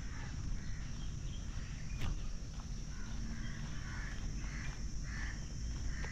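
Footsteps of a walker on a paved park path, with birds calling around it; a run of harsh, repeated calls, about two a second, comes in the second half.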